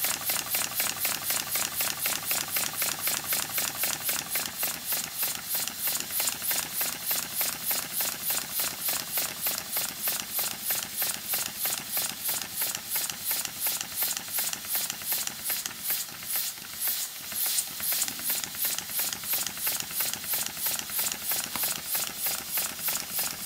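Homemade double oscillating-cylinder model steam engine running on compressed air: a steady, rapid chuff of hissing exhaust puffs, about four a second.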